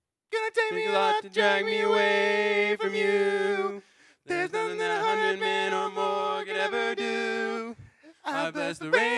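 Male voices singing a cappella in close harmony, holding long chords. The singing breaks off briefly about four seconds and again about eight seconds in.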